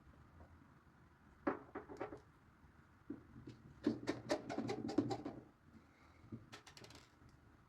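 Light clicks and scratches of a small screwdriver driving tiny screws into the plastic cover of a Samsung Galaxy M12's frame, in three short bursts.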